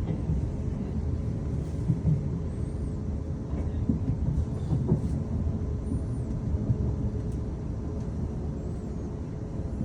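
Steady low rumble of a train running on the rails, heard from inside the carriage as it approaches its terminus. A few sharp knocks and faint high squeaks come from the wheels on the track.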